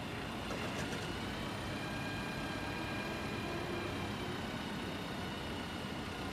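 2012 Caterpillar TH407 telehandler's diesel engine running steadily while the boom lifts and extends, with a steady high whine from the working hydraulics over the engine.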